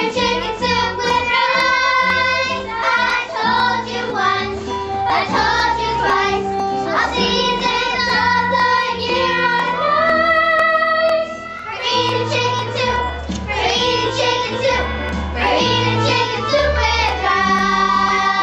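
Children's voices singing a stage song over a musical accompaniment with a steady bass line.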